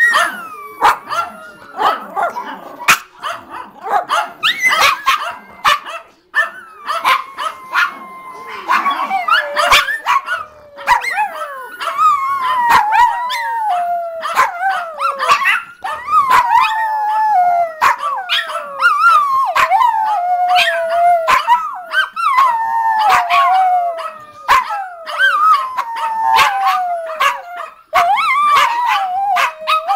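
Chinese crested and Yorkshire terrier dogs howling together in a loud sing-along, set off by hearing a recording of their own howling, with sharp barks mixed in. Mostly barks and yips at first; from about ten seconds in, a run of long howls that slide down in pitch, one after another, with barks breaking in.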